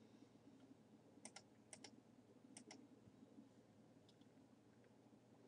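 Near silence with a few faint, sharp computer mouse clicks, in two or three small clusters between about one and three seconds in.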